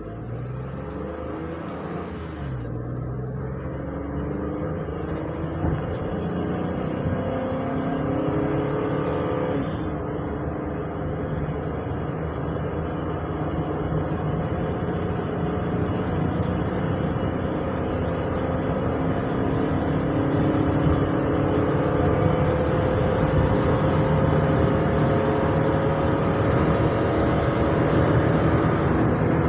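Ford Transit van's engine accelerating hard under load, its pitch climbing through the gears, with shift drops about two seconds and ten seconds in, then a long steady climb. This is a test drive after a crankshaft relearn to check whether the random misfire returns.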